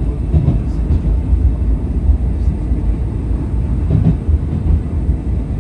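English Electric Millennium Car tram running along the tramway, heard from inside the car: a steady low rumble of wheels and running gear on the rails.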